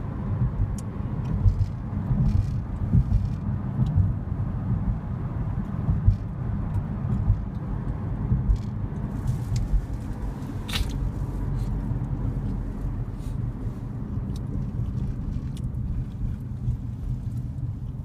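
Car cabin noise while driving: a steady low rumble of road and engine, with scattered light clicks and one sharper click about eleven seconds in.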